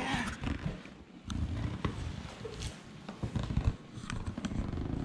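Large cardboard shipping box being handled: flaps scraping and rustling, with several sharp knocks and thumps.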